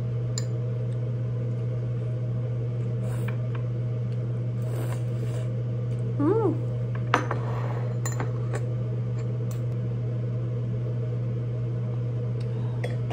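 Light clinks and taps of dishes and cutlery at a meal, scattered through, the sharpest about seven seconds in, over a steady low hum.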